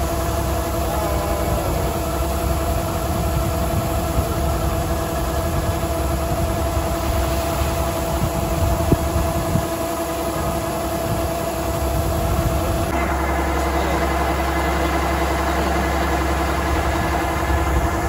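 Kubota rice combine harvester running steadily while it unloads threshed paddy through its discharge spout, a constant machine hum with several steady tones. The sound shifts about 13 seconds in.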